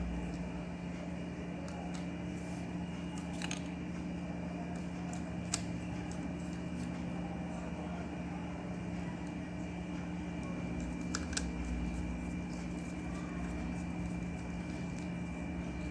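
A steady low hum with a thin high whine runs throughout, broken by a few small sharp clicks about 3.5, 5.5 and 11 seconds in from handling while the fan's supply wires are fastened at their terminal.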